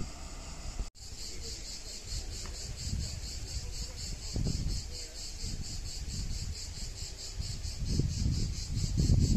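Cicadas singing in a steady, evenly pulsing high-pitched chorus, with wind rumbling on the microphone in gusts that are strongest near the end. A brief dropout about a second in marks an edit.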